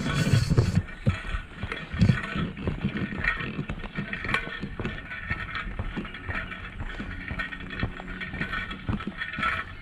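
Footsteps of a person walking a trail, an irregular run of soft crunching steps over a constant background hiss, with a brief louder rustle at the start.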